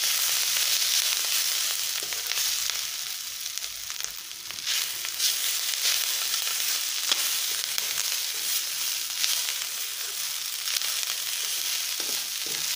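Chopped capsicum and onion coated in gram flour sizzling steadily in oil in a nonstick kadai, with a metal spoon scraping and stirring through it in small clicks. It is being roasted uncovered on a low flame until the gram flour turns golden brown.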